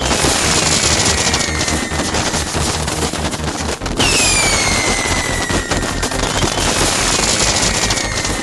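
Dense fireworks crackling with two long falling whistles, one at the start and one about four seconds in, over music with a steady beat.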